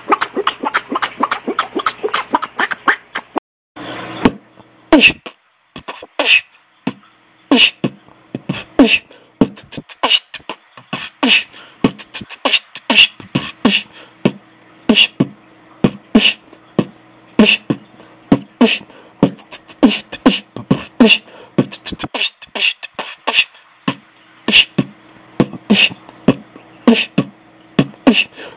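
Human beatboxing recorded through a poor-quality microphone: a fast run of clicking mouth percussion, a short break about three and a half seconds in, then a steady rhythmic beat of sharp percussive hits.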